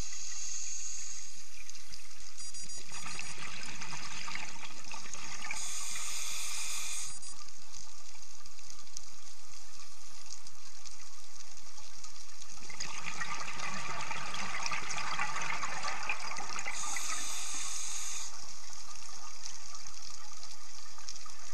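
A scuba diver breathing through a regulator underwater, two breaths in turn. Each breath has a short, high hiss on the inhale and a longer rush of exhaled bubbles.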